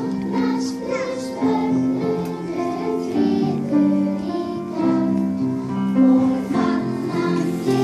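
Children's choir singing a slow song with held notes.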